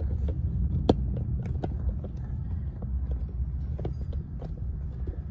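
Low steady rumble with scattered light clicks and knocks, one sharper knock about a second in.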